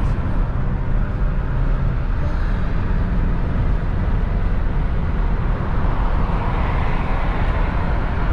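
Steady rumble and hiss of a car on the move: road and wind noise with no break or change.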